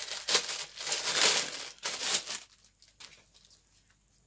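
Packaging crinkling and rustling as an item is unwrapped, in a run of noisy bursts for about two and a half seconds, then a few light clicks before it goes quiet.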